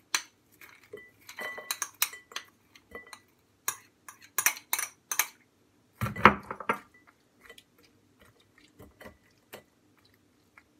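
Metal spoon scraping and clinking against a plastic container and a glass mixing bowl as corn kernels are spooned onto pasta. The clicks come irregularly, with one louder knock about six seconds in.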